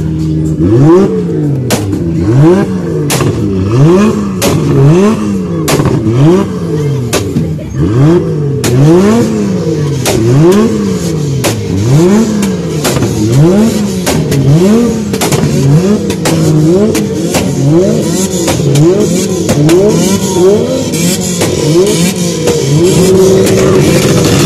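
Car engine being revved over and over, its pitch climbing and falling back about once a second, after a short steady hold at the start. Sharp pops crack out between the revs, mostly in the first half.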